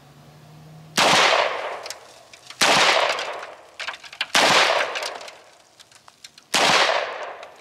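CZ Scorpion Evo 9mm pistol firing four single shots, spaced about one and a half to two seconds apart, each trailing off over about a second.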